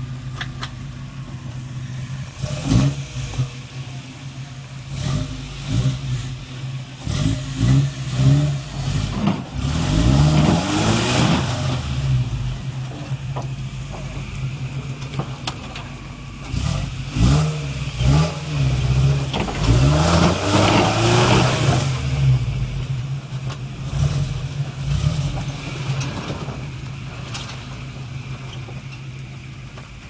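Solid-axle-swapped Toyota Tacoma's 3RZ four-cylinder engine idling and revving in repeated bursts as the truck crawls up wet rock ledges, with knocks from the truck against the rocks. The longest surges come a third of the way in and again about two-thirds in, and the engine settles back toward idle near the end.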